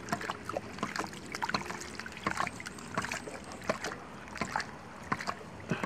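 Homemade hydraulic ram pump running: its PVC check valve, fitted as the waste valve, clacks shut over and over, about three sharp clacks a second, with water spurting and splashing from it.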